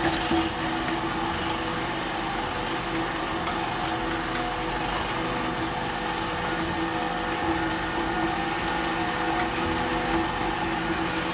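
SBC-480 Altai cant-making saw machine running with no log in it: its saw shafts and the chain conveyor of the infeed deck give a steady, even hum with a whine on top.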